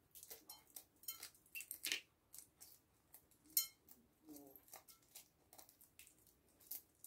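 Hard-boiled egg being peeled by hand: faint, irregular crackles and clicks of eggshell breaking away, with small shell pieces ticking against a porcelain plate.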